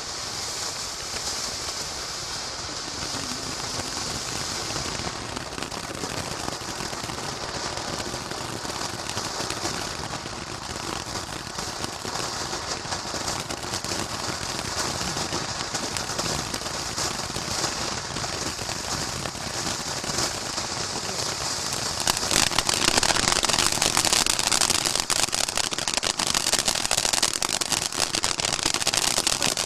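Firework fountain battery spraying with a steady hiss. About three quarters of the way through it turns louder, into a dense fast crackling.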